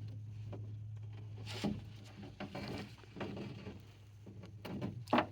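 Irregular knocks and thumps inside a boat as buffalo fish and hoop nets are handled, the loudest a sharp knock just before the end, over a steady low hum.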